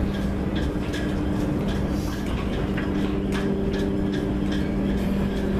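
A steady mechanical hum holding a few low pitches, with scattered light clicks and ticks over it.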